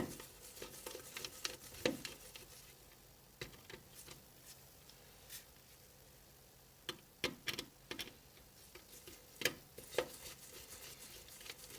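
Scattered small clicks and taps of precision repair tools on an opened iPhone 6s as the home button bracket screws are worked loose, with bunches of clicks about two seconds in, around seven to eight seconds in, and near the end.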